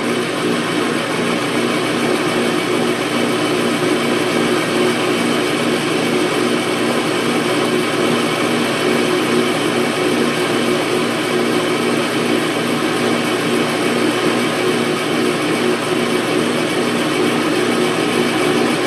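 Atlas metal lathe running steadily in reverse, turning a steel spindle while hand-held abrasive is pressed against it to polish it.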